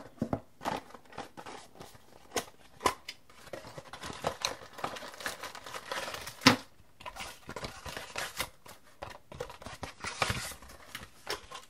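Handling of a cardboard box and its inner tray, with a clear plastic bag around the charger cable crinkling. Scattered small clicks and knocks, the sharpest about six and a half seconds in.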